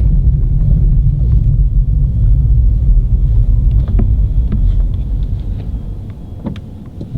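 Car running, a steady low rumble that fades off over the last couple of seconds, with a few light clicks near the end.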